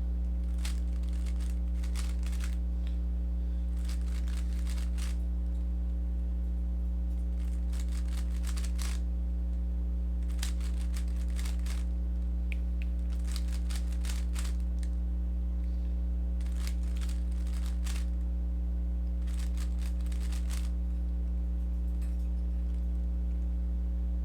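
Rubik's cube being turned through algorithms: bursts of quick plastic clicking and clacking lasting a second or two, repeated about every two to three seconds, over a steady low hum.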